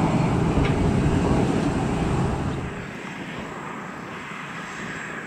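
A Boeing 747-8F's GEnx jet engines running: a heavy low rumble that drops off suddenly about two and a half seconds in, leaving a quieter, steady engine hum.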